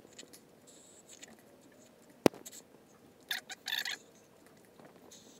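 Slurping sips of hot coffee from a mug: two short sips about three and a half seconds in. A single sharp click comes a little over two seconds in.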